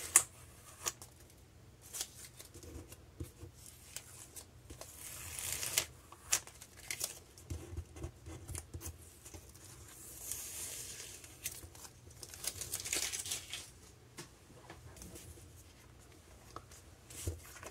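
Masking tape being peeled off watercolour paper: several separate slow ripping pulls, each about a second long, with light clicks and paper handling between them.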